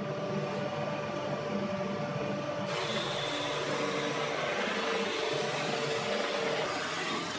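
Drum sander running, a steady motor hum with a thin whine. About two and a half seconds in, a harsher, hissier sanding noise joins, as a segmented wooden ring passes under the abrasive drum.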